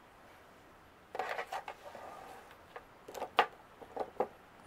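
Clear resin rune stones clicking and clacking against each other as they are handled and spread out on a tabletop. It is quiet for about the first second, then comes a run of sharp clicks with some sliding.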